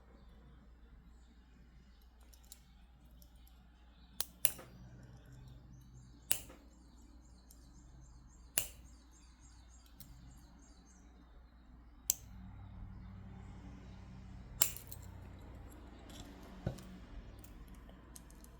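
Beads of a crystal bracelet being handled during restringing: about seven sharp, irregularly spaced clicks of stone beads knocking together or set down on a hard surface, over a low steady hum.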